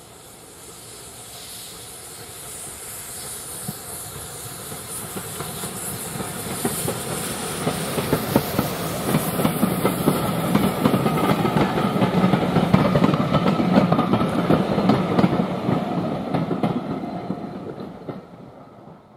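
Steam-hauled passenger train approaching and passing: the sound builds over about twelve seconds, with a hiss of steam early on. It peaks in the clatter of the bogie coaches' wheels over the rail joints, then fades as the train runs away.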